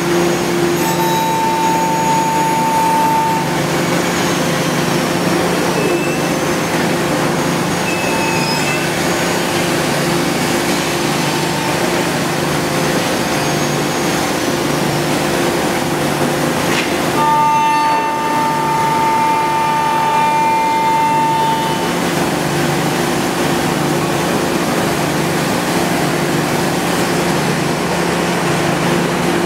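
A 5-axis CNC wood router running: a steady machine hum with a hiss over it. A higher steady tone comes in twice for a few seconds, about a second in and again past the middle.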